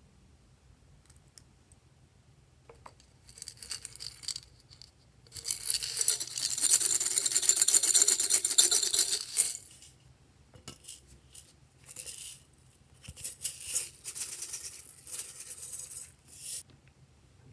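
Glossy slime being squished and stretched by hand, giving sticky crackling and popping. It comes in short spells, with one long, louder stretch in the middle.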